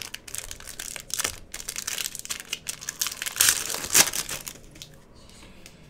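Foil trading-card pack wrapper crinkling as it is torn open by hand, for about four seconds and loudest just before it stops.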